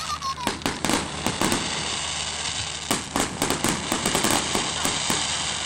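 Aerial fireworks bursting overhead: a rapid, dense run of sharp cracks and pops from shells and crackling stars, with a short falling whistle right at the start. The cracks thin out toward the end.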